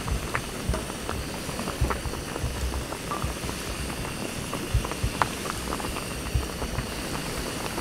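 Pot of oden broth boiling on a gas camp stove: a steady bubbling with many small irregular pops.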